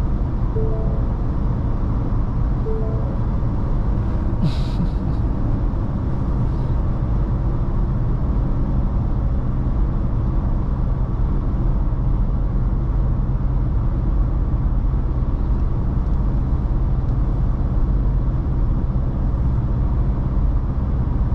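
Steady low drone of a Ford Ranger Raptor pickup's engine and tyres heard inside the cabin while cruising. A few short tones sound near the start, and a brief hiss comes about four and a half seconds in.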